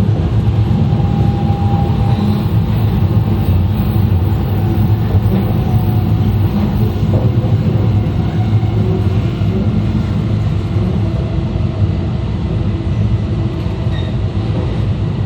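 E2 series Shinkansen with Mitsubishi IGBT traction equipment running on the line, heard from the car's vestibule: a steady, loud low rumble of wheels and body with a faint whine above it.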